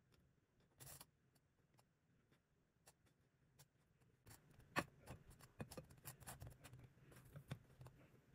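Faint scraping and light taps of a butter knife spreading butter over toast in a frying pan, sparse at first and busier in the second half.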